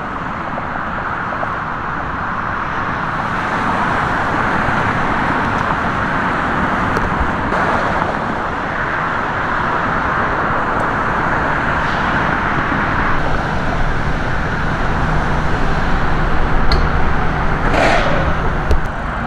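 Steady road traffic noise: the continuous hiss of cars passing on a busy street. A low engine hum joins in about two-thirds of the way through.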